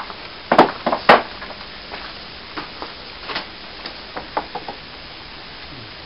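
Sharp knocks and clicks of a crowbar prising a mould off a plaster cast: two loud knocks about half a second and a second in, then a scatter of lighter clicks and taps.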